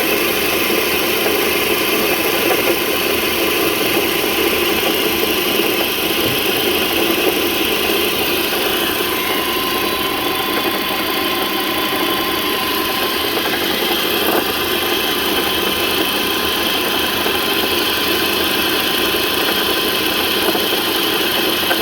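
2006 Volvo XC90 T5 engine idling steadily with an unusual noise that began a day before; the belts and pulleys look to be in order, so the cause is unknown.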